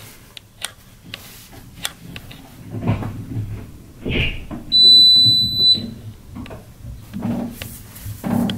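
A single high-pitched electronic beep lasting about a second, about five seconds in, amid soft rustling and small handling knocks.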